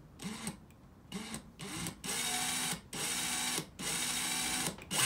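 DeWalt 12V Xtreme screwdriver's motor running a Phillips bit unloaded, feathered on the trigger: faint, wavering at first, then about two seconds in three louder, steady runs of roughly a second each with short breaks between.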